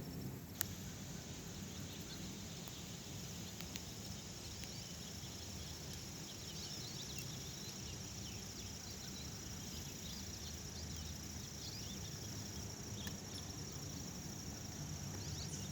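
Steady high-pitched drone of a chorus of insects, with a few faint short chirps in the middle and a single sharp click about half a second in.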